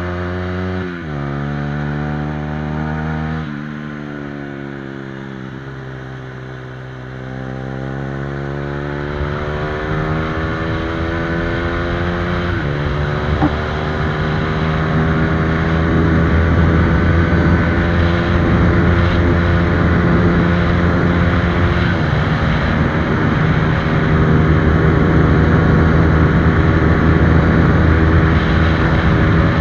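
Honda CBR125R's single-cylinder four-stroke engine through a replica Akrapovic exhaust, revved hard under acceleration: the pitch climbs in each gear and drops sharply at four upshifts. It grows louder and noisier from about nine seconds in, running near the redline toward the end.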